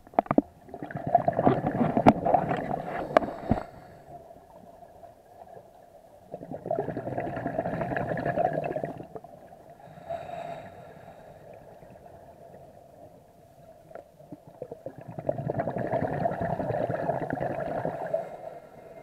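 Scuba regulator breathing underwater: three bursts of exhaled bubbles gurgling, each about three seconds long, with a shorter, fainter breath between the second and third. A few sharp clicks come in the first few seconds.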